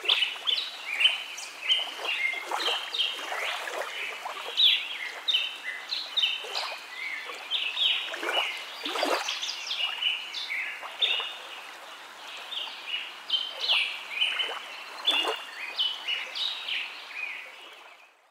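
Outdoor nature ambience of many birds chirping and calling in quick, overlapping short notes over a steady background hiss, fading out near the end.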